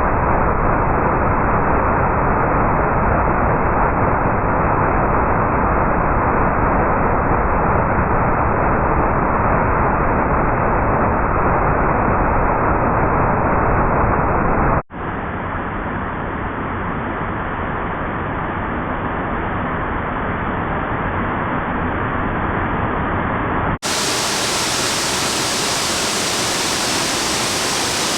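Steady rush of falling water in a mountain brook. It breaks off abruptly about 15 seconds in and again near 24 seconds, each time going on with a different tone, the last part much hissier.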